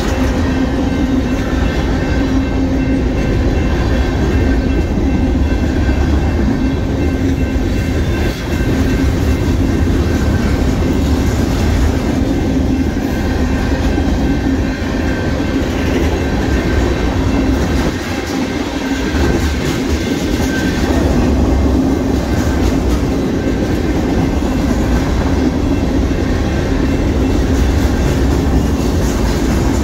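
Freight train's tank cars and boxcars rolling past at close range: a steady, loud rumble of steel wheels on rail with a clickety-clack of wheels over the rail joints and a steady ringing tone over it.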